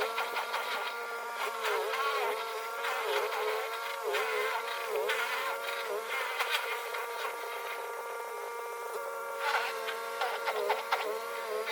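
Snow Joe ION100V battery-powered snow blower's electric motor whining, its pitch dipping briefly about once a second as it takes in snow, with short scraping clicks mixed in.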